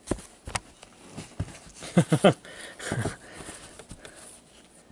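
Handling noise from trading cards and cotton-gloved hands close to the microphone: a few short scuffs and taps, the sharpest about two seconds in.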